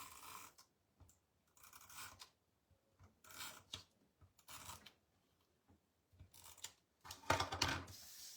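Paper and cardstock being handled and slid into place on a scrapbook page: a string of short scrapes and rustles about a second apart, with a louder, longer rub near the end.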